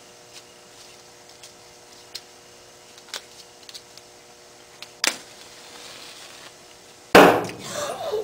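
A match struck about five seconds in, with a short hiss as it flares. About two seconds later comes a loud pop, sudden and dying away within a second: the hydrogen-filled soap bubbles from an electrolysis cell igniting.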